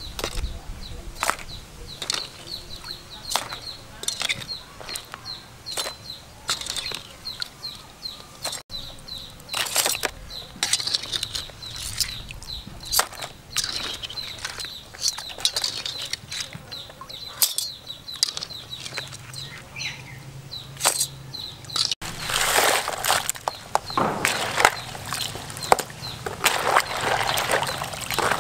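Live crabs clattering and clicking as they are handled with tongs in a woven bamboo basket and a plastic tub. In the last few seconds water splashes and sloshes as the crabs are stirred in a tub of water. A bird chirps over and over in the background.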